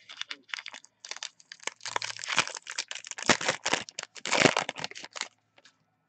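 Plastic wrapper of a football trading-card pack being torn open and crumpled by hand: a dense run of crinkling and crackling, loudest in the middle, that stops about five seconds in.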